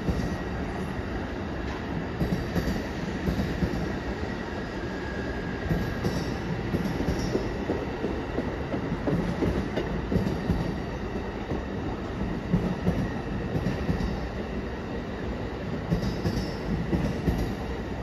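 Amtrak Superliner bilevel passenger cars rolling past as the train pulls out: a steady rumble and clatter of steel wheels on rail, with a faint wheel squeal now and then.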